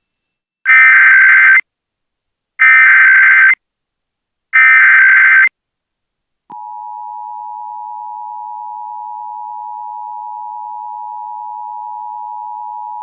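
Emergency Alert System header: three bursts of SAME digital data tones, each about a second long and a second apart. About six and a half seconds in, the EAS two-tone attention signal (853 and 960 Hz sounded together) starts and holds steady.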